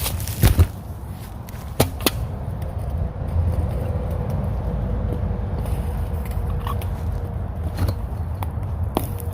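Sharp knocks and thumps of a person scrambling over a fence in the first two seconds, then a steady low rumble with a faint steady hum.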